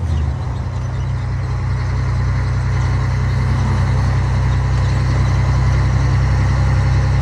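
Scania 113 truck's diesel engine running under way at cruising speed, heard from inside the cab as a steady low drone that grows a little louder over the first couple of seconds and then holds steady.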